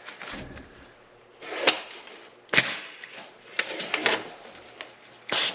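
Short arc-welding bursts on a rusted-in broken stud: a few sharp cracks and brief crackling spurts, a second or so apart. They come as the arc jumps to the corroded base metal around the stud.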